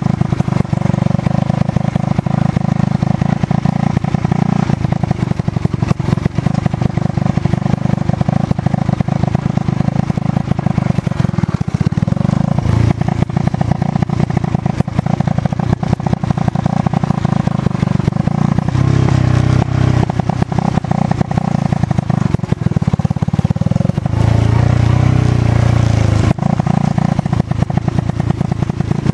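Motorcycle engine running as it rides a dirt track, its pitch rising and dropping back several times as the throttle changes.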